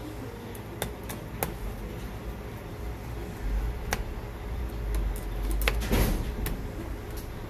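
Scattered light clicks and taps of a hand screwdriver and small screws on a moulded-case circuit breaker's plastic cover as the cover screws are driven back in. A louder scraping rub comes about six seconds in.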